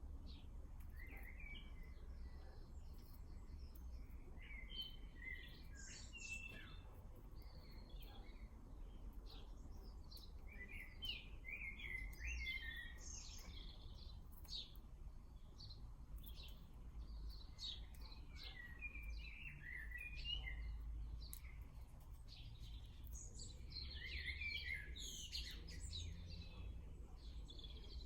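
Small garden birds chirping and twittering in clusters of short calls, over a steady low rumble.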